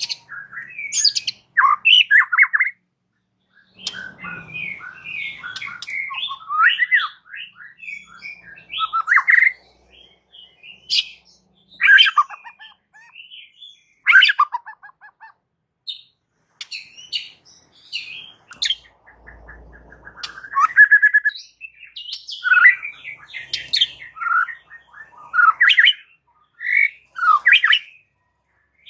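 White-rumped shama (murai batu) singing: a rapid string of varied whistled, chattering and squawking phrases, each broken off by short pauses.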